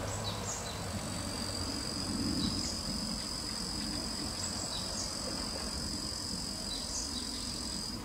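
Steady, high-pitched insect drone in the background, with a few faint, short chirps scattered over it.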